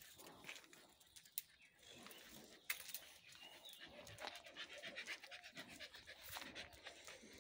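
Faint, rapid panting breaths close to the microphone, with a sharp click a little before the halfway point.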